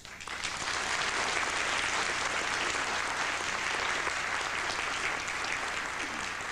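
Audience applauding at the close of a speech: clapping that breaks out at once, holds steady, and begins to fade near the end.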